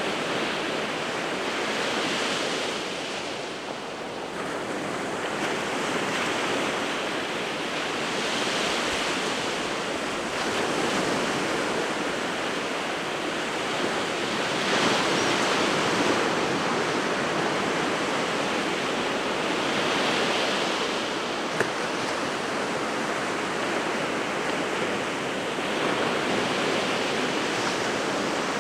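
Sea of Japan surf in winter, waves breaking and washing ashore in a continuous rush that swells about every six seconds.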